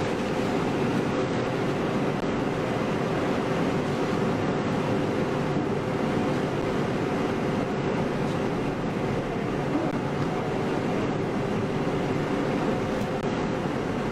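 Steady background hiss with a low, even hum and no distinct events.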